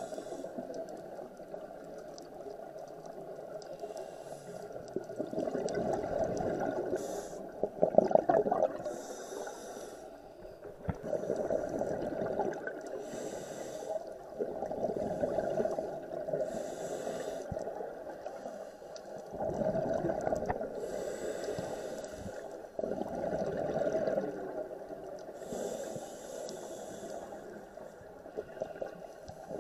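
Scuba diver breathing through a regulator underwater: the hiss of each inhale alternates with the gurgle of exhaled bubbles, a breath every few seconds.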